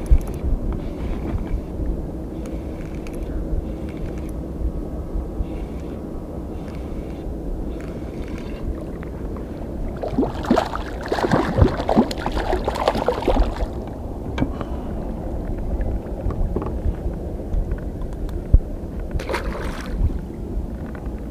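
Hooked zander splashing and thrashing at the water's surface beside a small inflatable boat, in a burst of wet crackles about halfway through and again briefly near the end, over a steady low rumble of wind and water.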